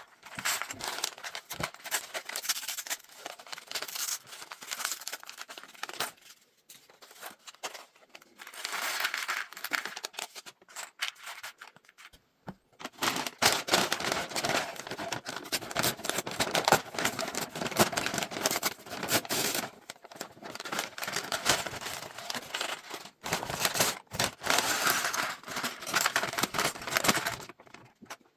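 Plastic LEGO parts bags crinkling and tearing as they are handled and opened, in long rustling stretches broken by a few short pauses.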